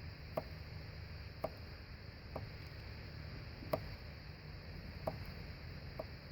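Stainless steel knife chopping onion and mushroom, with about six sharp, separate cuts through the vegetables onto the board at an uneven pace of roughly one a second.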